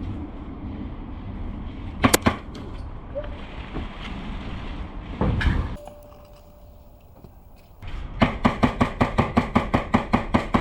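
Airsoft guns firing: a couple of sharp shots about two seconds in, then from about eight seconds a fast, even string of shots, roughly seven a second.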